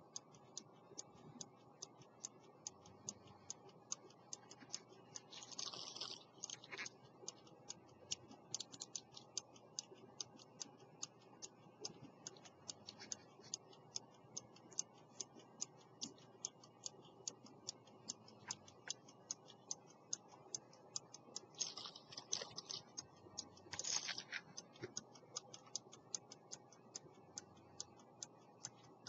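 An 18th-century London silver fusee pocket watch with a verge escapement running, ticking rapidly and evenly. Two brief rustles cut in, about six seconds in and again around 22 to 24 seconds.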